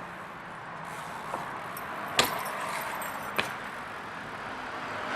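Steady background noise with a few sharp clicks or knocks, the loudest about two seconds in and another just over a second later.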